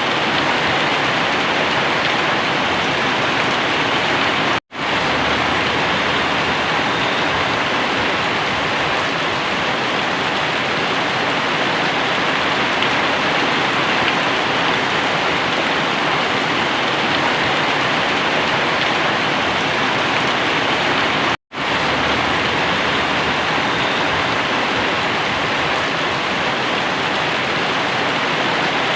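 Very heavy rain pouring down, a steady dense hiss, broken twice by a split-second dropout to silence.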